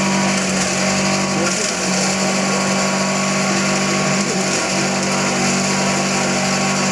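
A leaf chopper-grinder machine running steadily as it shreds green leaves, a loud machine hum with a hiss over it. The hum dips briefly twice.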